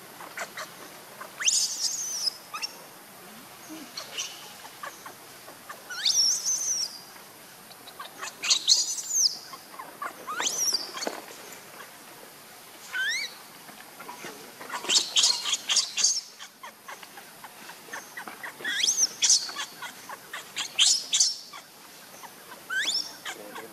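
Newborn macaque crying: high, shrill squeals that sweep up and down in pitch, in short bouts every two to three seconds.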